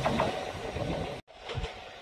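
Kintetsu electric train running past, its wheels clattering over the rail joints. About a second in, the sound breaks off completely, then the rumble of a train comes back fainter.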